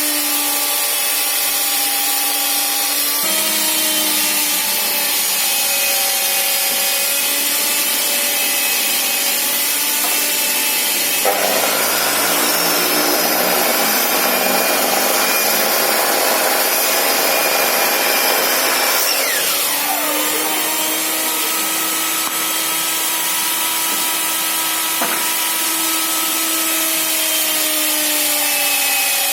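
Wipro 1800-watt sliding miter saw running with a steady motor whine. From about a third of the way in to about two-thirds its blade cuts through wood, rougher and louder, the motor's pitch dropping under load, then it runs free again.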